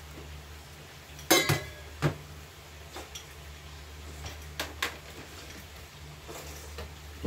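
A stainless steel saucepan set down on the stove with a ringing metallic clank about a second in, then a lighter knock and a few small clicks and taps of kitchen things being handled, over a steady low hum.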